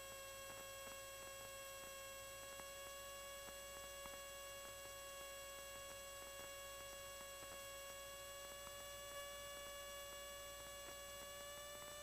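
Very faint, steady whine with evenly spaced overtones on the Cessna 172's cockpit audio feed, creeping slightly higher in pitch near the end, with faint scattered ticks; otherwise close to silence between radio calls.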